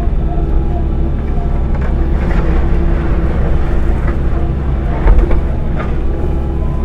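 Kobelco SK85 excavator engine running steadily under work, with a few knocks and a louder thump about five seconds in.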